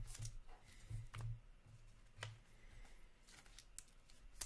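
Hockey trading cards being handled and flipped through by hand: light, scattered clicks and ticks of card edges, with a faint steady low hum underneath.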